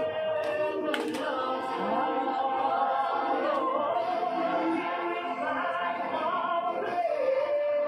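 Music with voices singing a slow melody in long held notes, the accompaniment to a group dance.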